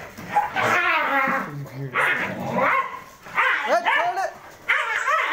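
Yelping, whining cries from a fight between dogs and a jackal, in about four bouts of rising-and-falling yelps.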